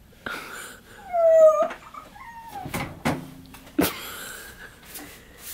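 A heavy studio subwoofer being hauled out from behind a desk: a few sharp knocks and bumps as it moves. About a second in comes a brief high whine that slides down in pitch.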